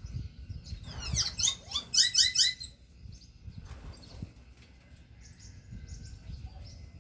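A bird sings a quick burst of rapid, repeated high chirps, starting about a second in and lasting under two seconds. Fainter chirps follow later, over a steady low rumble of wind buffeting the microphone.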